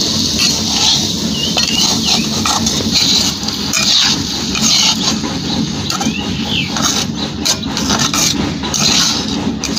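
A spatula scraping and turning chopped green chillies, peanuts and dal in a kadhai, with repeated scrapes and clinks against the pan over a steady sizzle of hot oil.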